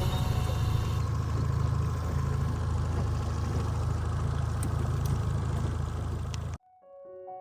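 Outboard motor of a small john boat running steadily under way, with a hiss of wind and water over it. About six and a half seconds in it cuts off abruptly and soft piano music begins.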